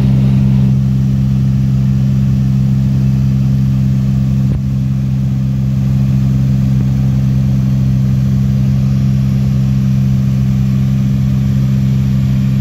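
Cessna light aircraft's piston engine and propeller droning steadily at cruise, heard from inside the cabin as a loud, even, low hum.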